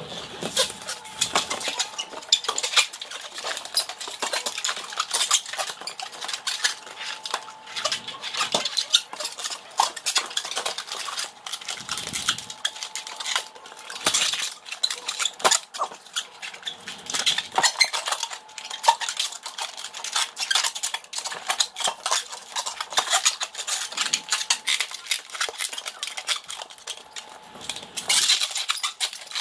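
Latex modelling balloon being twisted and rubbed by hand while it is shaped into a balloon dog: a dense, irregular run of rubbery squeaks and creaks.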